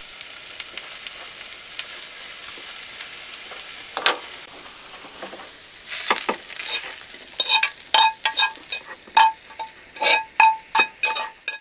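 Stir-fried udon noodles and vegetables sizzling in a cast iron skillet with light stirring. From about six seconds in, a rapid run of sharp scrapes and ringing taps follows as a metal utensil scrapes the noodles out of the skillet.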